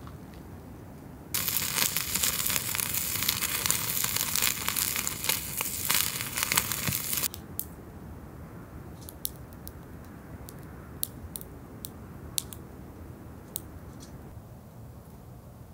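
Crinkling of plastic or packaging being handled for about six seconds, starting and stopping abruptly, followed by a few light clicks and taps.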